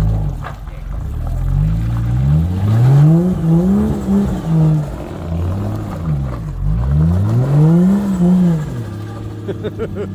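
Four-wheel-drive engine revving hard in repeated surges while working up a slippery track, the revs rising and falling several times before settling to a steady lower note near the end.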